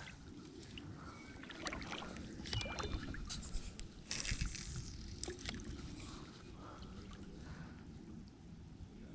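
Fishing gear being handled: scattered clicks, rustles and a few short clinks over a steady low rumble of wind.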